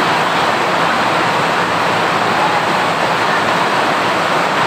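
A steady, loud rushing noise with no breaks.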